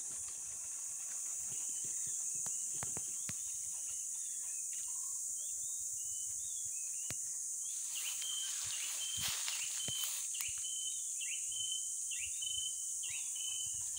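Steady high-pitched insect drone, with a bird calling in short repeated notes, two or three a second, from about eight seconds in. Around eight to ten seconds there is a crackling rustle of dry leaf litter.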